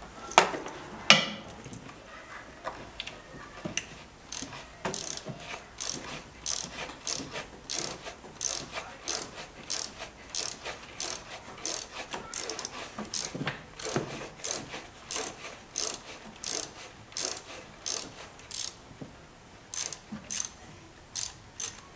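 Hand socket ratchet clicking as a fastener is turned, in runs of clicks about two to three a second, with two louder sharp knocks about a second in.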